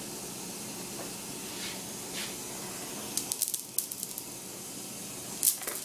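Pieces of dry dog food hitting and scattering across a tile floor: a quick run of small clicks a little past halfway and one sharper click near the end, over a steady hiss.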